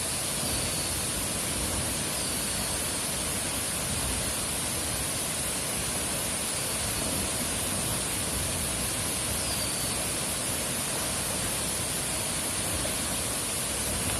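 Tumpak Sewu waterfall pouring down, a steady even rush of falling water. A few faint, short high chirps come through it every few seconds.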